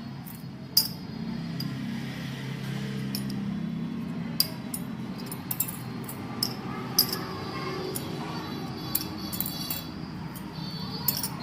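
Metal hand tools and small engine parts clinking against each other, about ten sharp clinks at uneven intervals, over a steady low hum.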